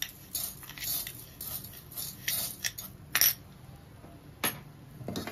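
Steel spoon scooping sugar from a bowl into a pot, with a string of scrapes and clinks of metal on the bowl over the first few seconds, then one sharp metal clink near the end.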